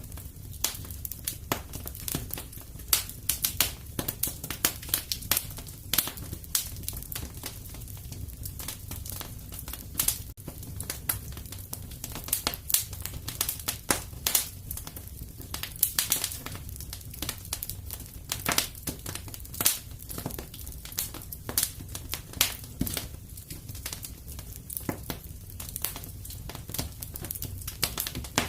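Wood fire burning in a fireplace: frequent irregular crackles and pops over a low steady rumble.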